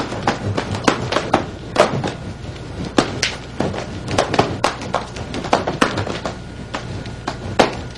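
Two nunchaku being spun at once, with irregular sharp clacks, a few a second, as the sticks strike the hands, the body and each other, over a faint steady low hum.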